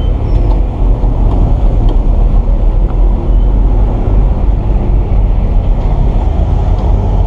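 Bera Super DT 200 motorcycle engine running at low speed, a steady low rumble mixed with wind buffeting on the rider's camera microphone.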